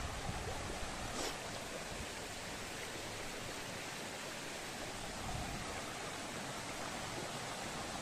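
Shallow stream running over stones and gravel, a steady rush of water.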